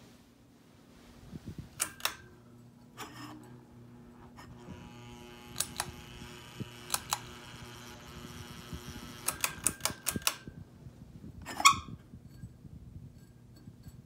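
Ceiling fan motor running with a steady low electrical buzz, a higher buzzing layer joining it in the middle. Scattered sharp clicks and taps sound over it, the loudest about three quarters of the way in.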